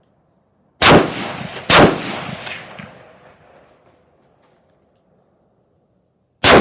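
Rifle fire: two shots about a second apart, each trailing off in a long echo, then a third shot near the end.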